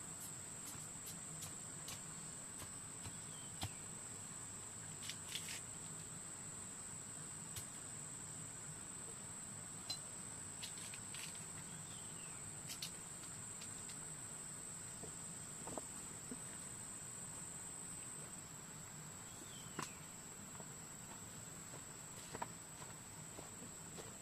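Insects droning as one steady high-pitched buzz, with scattered sharp clicks and light taps over it.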